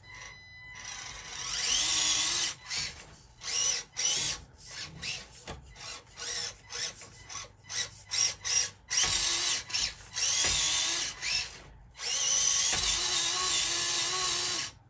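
Micro RC crawler's small electric motor and geared drivetrain whining in repeated short throttle bursts, then two longer runs near the end, as the tires spin and dig into the sand without climbing out.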